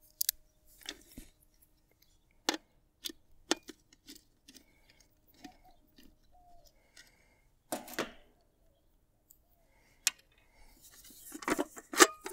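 Sparse small clicks and taps of a screw being undone on a MidNite Solar MNPV3 combiner box, with quiet gaps between them. A denser patch of handling noise comes near the end as the enclosure is picked up.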